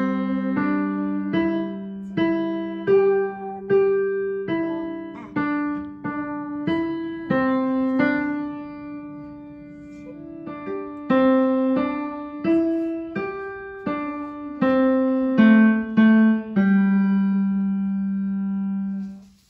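Digital piano playing a slow, simple beginner's melody one note at a time, roughly one to two notes a second, over a low note held underneath; it ends on a long held note.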